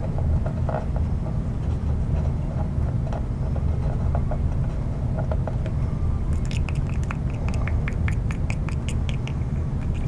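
A stick scratching and clicking in the hinge holes of a model plane's vertical stabilizer as epoxy is worked in: a few faint ticks, then a quick run of sharp clicks, about five or six a second, from a little past the middle to near the end. Under it runs a steady low rumble.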